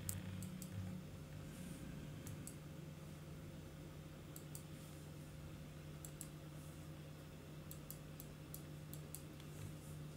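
Faint, irregular clicks of a computer mouse, several in quick clusters, over a low steady hum.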